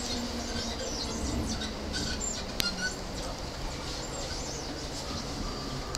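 Steady running hum inside an E231-series commuter train car, with faint short high squeaks and one sharp click a little under halfway through.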